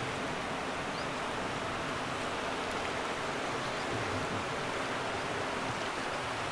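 Steady rushing of a fast-flowing river: an even hiss that does not rise or fall.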